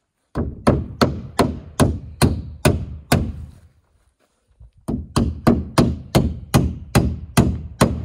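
Hammer driving nails into wooden framing: two runs of steady blows, about eight strikes and then about nine, roughly three a second, with a pause of about a second and a half between.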